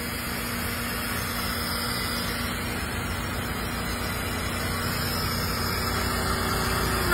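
Semi truck's diesel engine idling steadily: an even low rumble with a constant hum, slowly getting a little louder.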